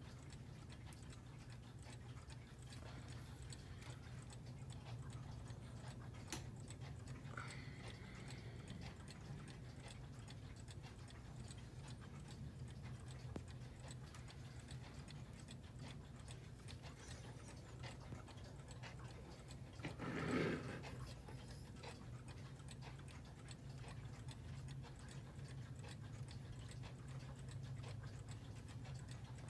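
Clocks ticking quietly over a steady low room hum, with one short louder noise about two-thirds of the way through.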